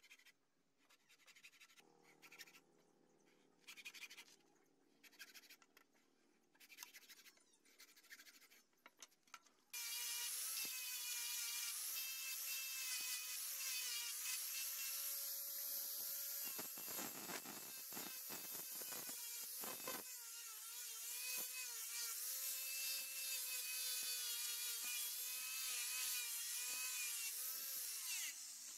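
A hacksaw cuts the steel rebar blade in slow strokes, about one every second and a half. About ten seconds in, an electric angle grinder with a sanding pad starts suddenly and runs with a steady high whine while it works the blade. It sounds rougher for a few seconds in the middle, where the pad bears harder on the steel.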